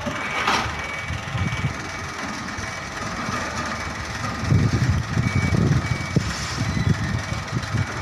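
Container truck reversing, its reversing alarm sounding in short repeated beeps over the engine. A brief hiss comes about half a second in, and a low, uneven rumble grows louder from about halfway.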